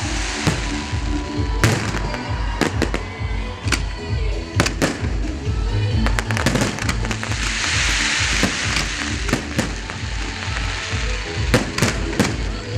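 Fireworks display: a string of sharp bangs from bursting shells, with a spell of dense crackling about eight seconds in, over loud music with a steady bass beat.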